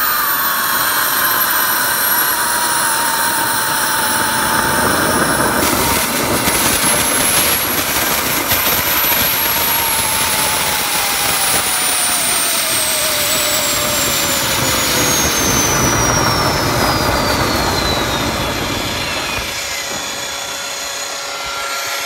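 Homemade turbojet engine running on its own: a loud, steady roar with a high turbine whine. From about nine seconds in, the whine falls steadily in pitch as the engine spools down.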